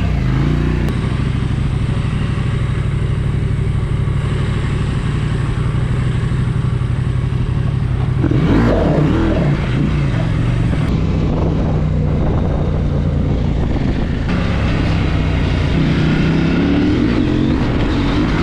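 Husqvarna Norden 901's parallel-twin engine running as the bike is ridden along. The revs change about halfway through and climb again near the end.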